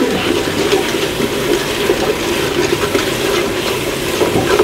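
Rice frying in hot oil in a pot on the stove: a steady sizzling hiss with small crackles, the rice browning before the water is added.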